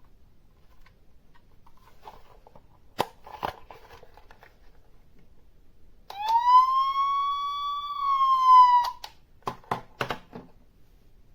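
Playmobil City Life 71202 toy ambulance's electronic siren sound effect playing once from its small speaker: a single wail lasting about three seconds that rises, holds and dips slightly at the end. Hard plastic clicks of the toy being handled come before and after it.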